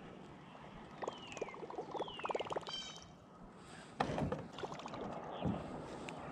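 Rapid chirping and two falling whistled calls, then from about four seconds in a sudden knock followed by rubbing and bumps as a baitcasting rod and reel are handled close by.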